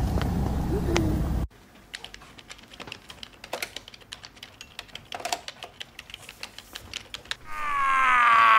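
Street traffic noise for about the first second and a half, then quick, irregular clicking of typing on a laptop keyboard. Near the end comes a long, loud wail that falls in pitch.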